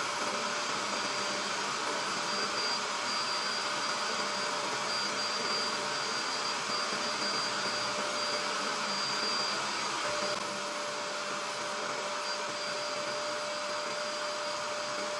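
Portable upholstery spot cleaner (a 'steamer') running, its motor sucking cleaning liquid and coffee out of a fabric recliner through the hose and handheld nozzle. A steady whine, a little quieter from about ten seconds in.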